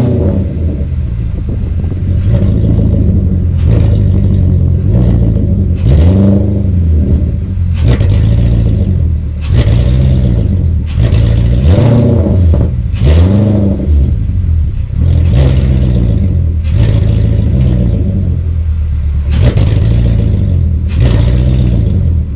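Jaguar XF engine through a straight-piped exhaust with MagnaFlow straight-through mufflers and no resonators, revved in short throttle blips over and over, about one every second and a half, each rising and falling back to idle.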